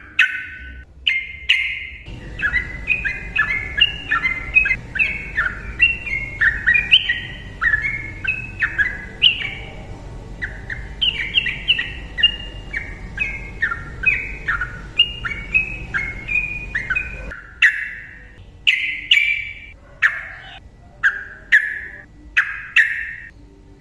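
Sooty-headed bulbul (trucukan) singing a long, rapid, unbroken run of short chattering notes that jump in pitch. This is the continuous 'ropel' song used to set silent trucukan singing. A low steady hum lies under the song for most of the time.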